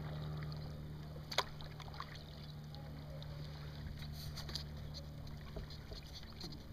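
Kayak paddling on flat water: paddle blades dipping and dripping, with light splashes scattered through and a single sharp knock about a second and a half in, over a steady low hum.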